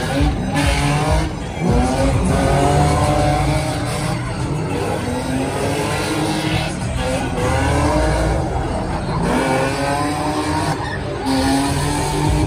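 Two drift cars sliding around the track together, their engines revving up and down again and again and their tires squealing.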